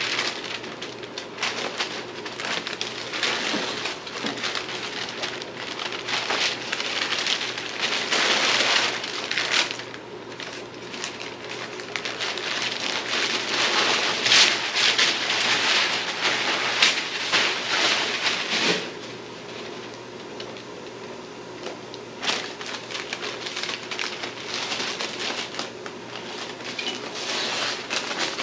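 Masking paper and masking tape being peeled off a truck cab and crumpled: irregular crinkling, rustling and tearing of paper. It is loudest for about ten seconds in the middle, eases off for a few seconds about two-thirds through, then picks up again.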